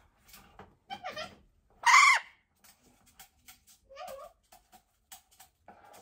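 Golden conure giving a few short, harsh, arching squawks, the loudest about two seconds in. It is the sound of a stressed bird held in a towel after beak clipping. Small clicks come in between the calls.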